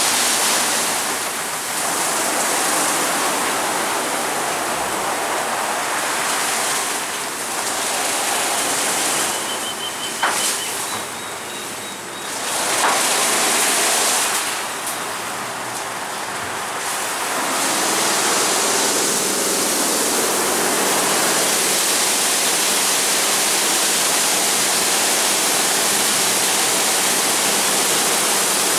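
WashTec Combiwash rollover car wash at work on a car: a steady rush of water spray and spinning wash brushes, dipping for a few seconds about a third of the way in. Past the middle, a steady machine hum joins the spray.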